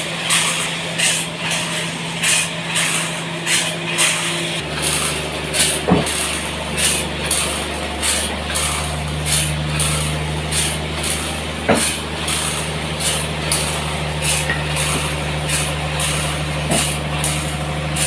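Sawmill machinery running: a steady low motor hum that drops to a deeper note about four and a half seconds in, with a regular hiss about twice a second. Three short sharp squeaks come near 6, 12 and 17 seconds.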